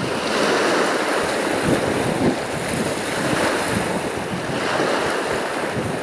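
Black Sea surf breaking and washing onto the shore in successive swells, with wind buffeting the microphone.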